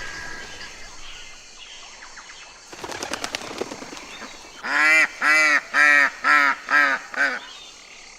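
A duck quacking six times in quick succession, loud and evenly spaced, after a short rapid rattle of clicks about three seconds in.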